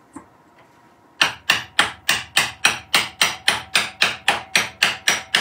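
Hammer striking the top of a turned tulipwood nutcracker figure in quick, even blows, about three or four a second, starting about a second in.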